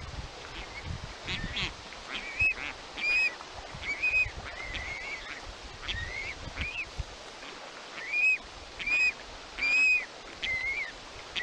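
Osprey chicks calling: a run of short, shrill whistled calls, each rising and falling, coming about twice a second in clusters, with the loudest calls near the start and again near the end.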